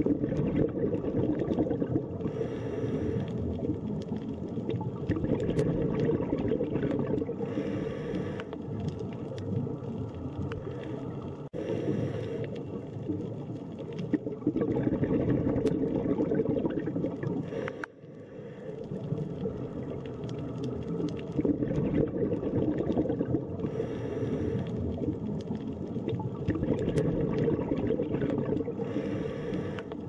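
Underwater sound picked up by a diving camera: a steady low water noise, with a short hiss of scuba breathing every few seconds.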